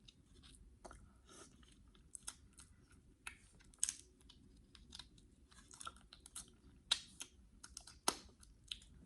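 Crab leg shells being cracked and picked at with a fork: irregular sharp clicks and crunches, mixed with chewing, with a few louder cracks about 4, 7 and 8 seconds in.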